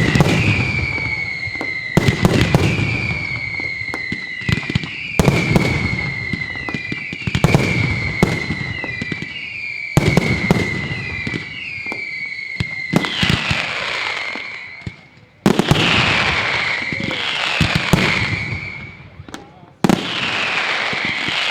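Daylight fireworks: loud shell bursts about every two to three seconds. Each burst is followed by whistles that slide slowly downward in pitch, several of them overlapping.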